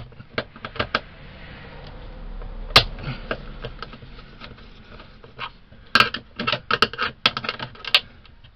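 Screwdriver working a terminal screw on an RV power center's metal ground bus bar to free the converter's ground wire: scattered metallic clicks, one loud click about three seconds in and a quick run of clicks near the end.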